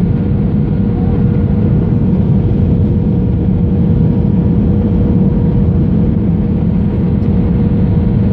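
Steady roar of an airliner's engines and airflow heard from inside the aircraft on the approach to landing, with a constant hum running through it.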